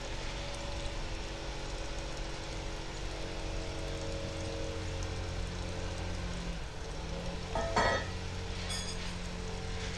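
Small engine of lawn power equipment running steadily in the background, its pitch dipping briefly and recovering a little past halfway. A brief higher-pitched sound, the loudest moment, comes about two seconds before the end.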